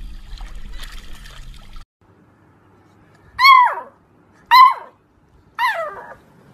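Water sloshing and splashing around a swimming dog, cutting off about two seconds in. Then a beagle puppy gives three high yipping barks about a second apart, each dropping in pitch at the end.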